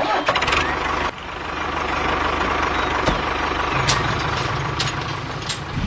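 Tractor engine idling with a steady low rumble.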